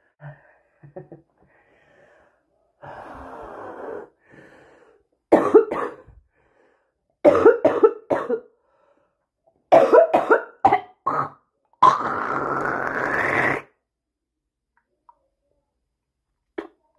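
A person's smoker's cough: an in-breath, then three bouts of several quick, loud coughs each, followed by a longer drawn-out sound of nearly two seconds that rises in pitch.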